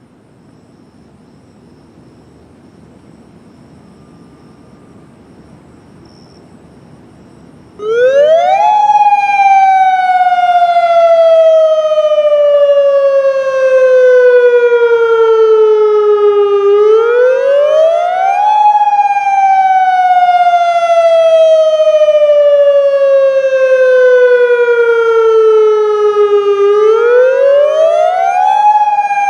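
Faint background noise, then about eight seconds in a Federal Signal Modulator 3012 electronic outdoor warning siren starts its test signal. It sweeps up quickly, slides slowly down, and sweeps back up about every ten seconds, very loud.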